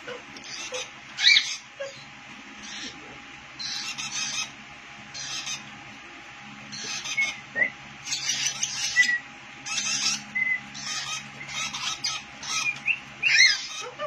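Lovebirds giving repeated shrill, harsh chirps and squeaks in short bursts of under a second, scattered through, over a faint steady hum.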